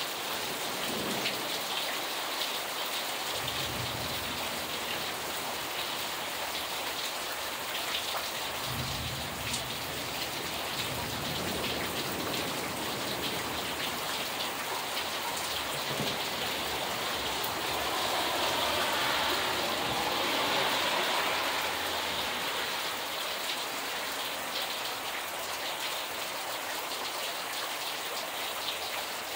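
Steady rain falling into standing water on a flooded yard and street, with two low rumbles in the first half and a few seconds of louder rain past the middle.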